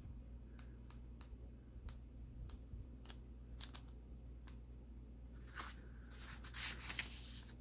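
Paper pages of a paperback comic digest being handled and turned by hand: faint ticks and crinkles, with a louder rustle of pages late on.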